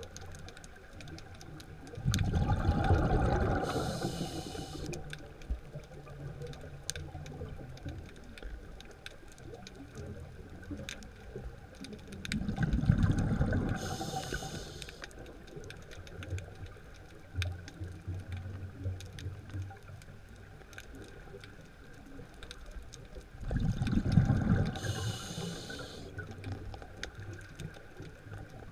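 A scuba diver breathing through a regulator underwater: three breaths about ten seconds apart, each a low rumble of exhaled bubbles followed by a short hiss. Faint clicking runs throughout.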